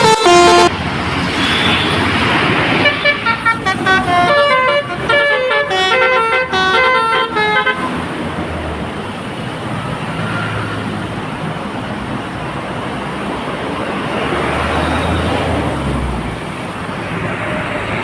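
A bus's multi-tone 'telolet' horn plays a quick tune of short stepped notes from about three to eight seconds in, after a held horn chord cuts off at the very start. Then only bus engine and traffic noise as the bus passes.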